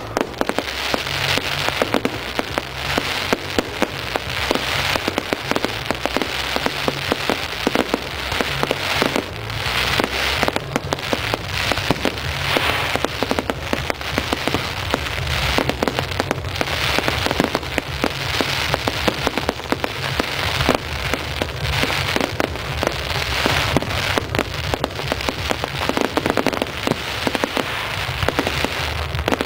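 Fireworks crackling: a dense, continuous spray of rapid small pops from crackling firework stars, thick enough to sound rain-like.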